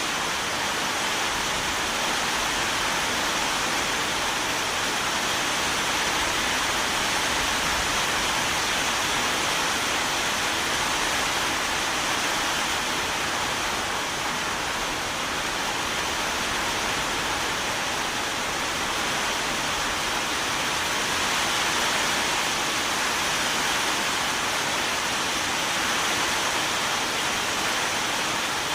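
Steady rain falling, a constant even hiss with no separate drops or thunder standing out.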